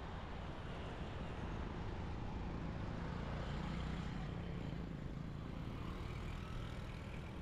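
Steady street traffic noise heard from a moving bicycle, with a low rumble underneath. The noise swells a little near the middle, as a vehicle passes.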